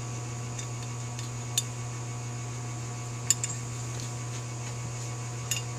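A few light, sharp metal clicks as brass main jets and a Holley 4000 carburetor's metal float bowl are handled and the jets set into the bottom of the bowl, the loudest click about three seconds in, over a steady low hum.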